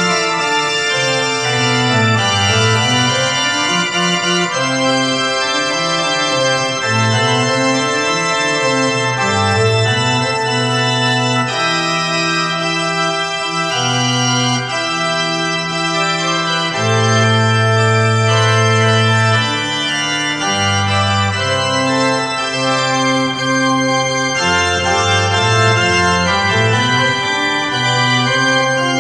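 Bernasconi pipe organ played with both hands: sustained chords over a bass line that moves from note to note.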